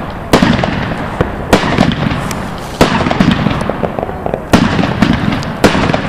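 Fireworks going off: about five loud sharp bangs roughly a second apart, over a continuous crackle of smaller pops and bangs.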